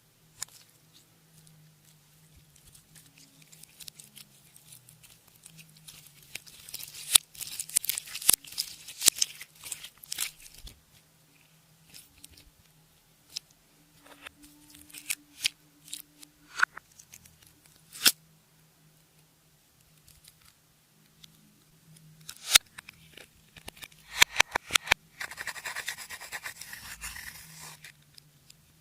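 Clear slime being worked by hand, giving sharp clicks and crackles in clusters, with a denser crackling rustle near the end.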